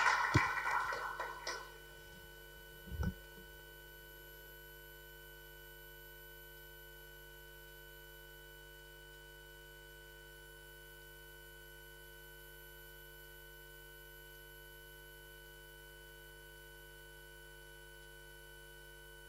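Applause dying away within the first two seconds, then a single dull thump about three seconds in. After that only a faint steady hum of room tone.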